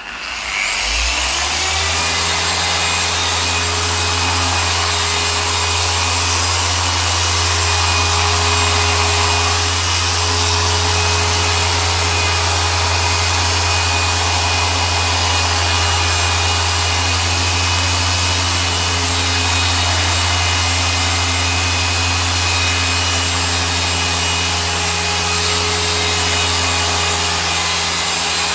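Small handheld machine polisher spinning up over the first couple of seconds, then running at a steady speed with its pad worked against the car's paint. It is machine-polishing the paintwork to remove swirls and sanding marks.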